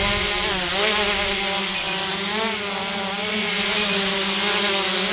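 SJRC F11 quadcopter's motors and propellers buzzing steadily as it flies close by, the pitch wavering up and down as the motors adjust.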